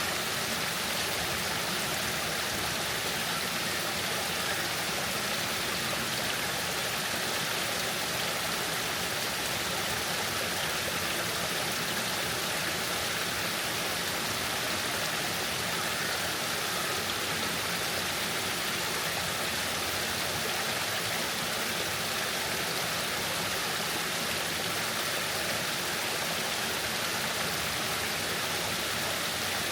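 Waterfall's water pouring and splashing: a steady, unbroken rush.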